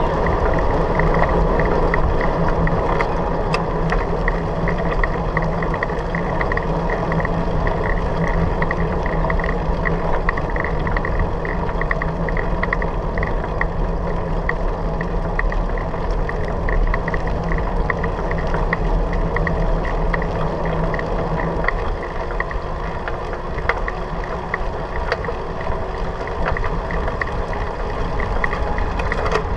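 Bicycle riding as heard from a handlebar-mounted action camera: tyres rolling over a gravel path, with a steady rumble, wind on the camera and a fast, continuous rattling of the bike and mount. A low steady hum drops out about three-quarters of the way through, and the rumble eases a little after that.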